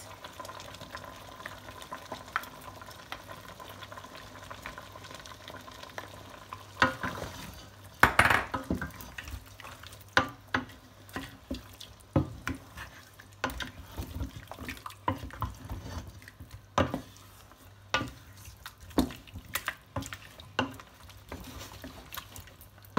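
Wooden spoon stirring a pot of meat and snails in palm oil. There are irregular sharp knocks of the spoon against the enamelled pot and its contents from about seven seconds in.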